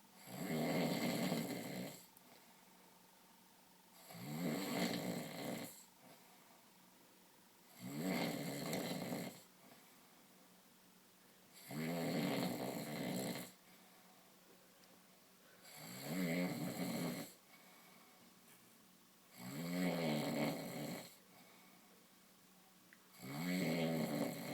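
A man snoring in his sleep: seven loud snores, one about every four seconds, each lasting about a second and a half, with quiet between them.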